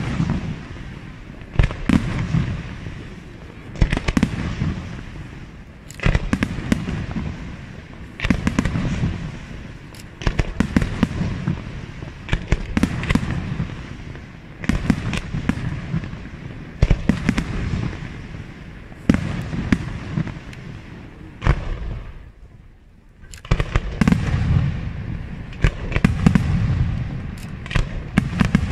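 Aerial firework shells bursting in quick succession, a sharp bang about every two seconds, each followed by smaller crackles and low rumble, with a short lull a few seconds before the end.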